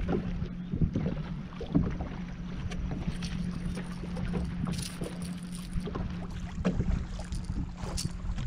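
Choppy lake water lapping and slapping against a bass boat's hull in irregular knocks, over a steady low hum, with some wind on the microphone. A brief brighter splash comes about five seconds in.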